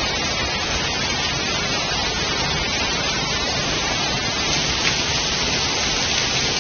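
Heavy hailstorm: hail and rain falling hard, a steady dense hiss that grows a little brighter about four and a half seconds in.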